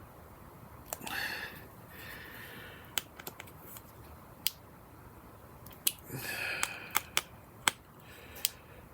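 Small screwdriver tightening MacBook Air display hinge screws into the chassis: about a dozen sharp clicks and taps of the bit and tool on the metal, with a few short rasping scrapes about a second in, at two seconds and near six seconds.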